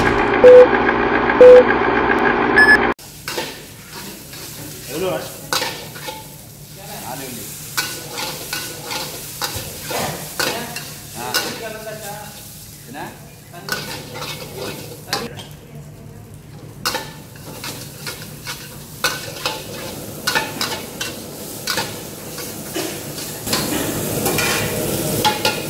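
A countdown-leader intro of short beeps, about a second apart, with a higher blip, over a steady hum, cutting off about three seconds in. Then a metal ladle scraping and clinking against a wok as rice is stir-fried, with a sizzle underneath.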